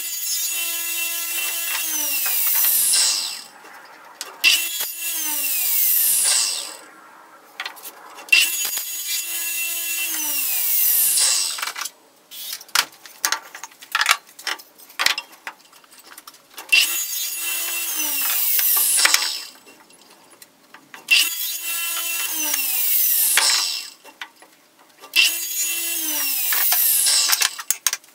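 Radial arm saw cutting wooden boards, six times over: each time the motor starts abruptly, runs steadily through the cut, then winds down with its pitch falling. Knocks of boards being handled sound between cuts.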